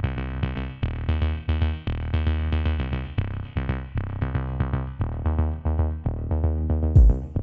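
Background music with a steady beat and bass, with sharper, brighter hits coming in near the end.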